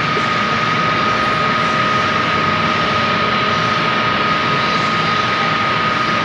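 Milling machine running steadily. Its spindle drive gives off a steady high whine over an even mechanical noise.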